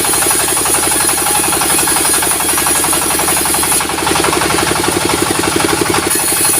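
Sawmill's diesel engine running steadily with a rapid, even pulsing beat, joined by a high hiss from the saw that drops out about four seconds in and comes back near the end.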